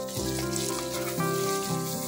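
Background instrumental music with held notes changing every fraction of a second, the loudest sound, over a steady hiss of paneer cubes sizzling as they fry in melted butter.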